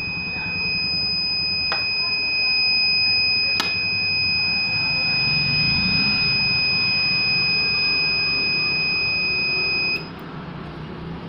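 Inverter's piezo alarm buzzer sounding one continuous high-pitched tone that cuts off suddenly near the end, with a couple of faint clicks early in the tone.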